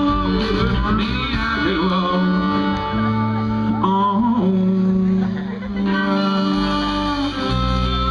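Live country-rock band playing an instrumental passage, with fiddle, acoustic and electric guitars and drums, and sliding fiddle notes over held chords.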